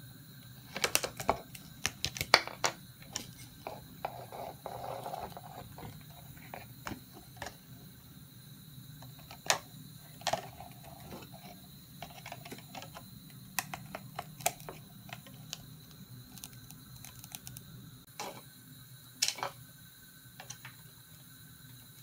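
Budgerigar pecking and moving about inside a cut plastic bottle: irregular clicks and taps of beak and feet on the thin plastic, in a busy cluster a second or two in, then single sharper taps scattered through the rest.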